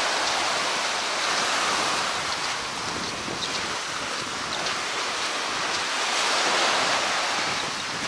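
Steady rushing noise of a rainstorm at the seashore: surf breaking on the beach and rain, with wind buffeting the microphone, all blended together. It swells a little about six seconds in.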